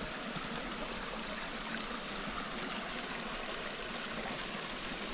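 Steady rush of running water from a small spring run flowing over the bank.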